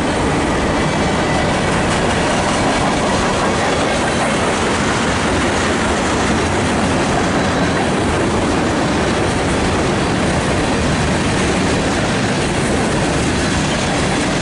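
Manifest freight train passing close by, a steady loud rumble of wheels on the rails with clickety-clack over the joints.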